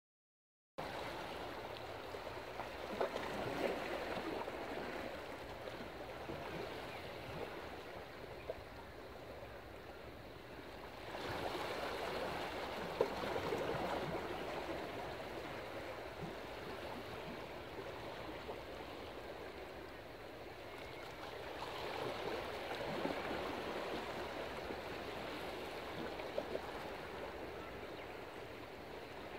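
Sea water washing and gurgling among the big stones of a breakwater, swelling in three slow surges as small waves come in and drain back.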